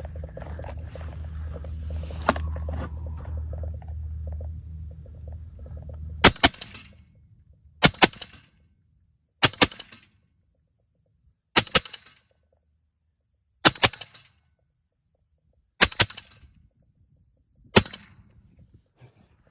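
Western Airguns Sidewinder .30 caliber air rifle firing on full auto in short bursts of about two shots each, seven bursts roughly two seconds apart. Before the first burst there are a few seconds of low steady rumble and faint handling clicks.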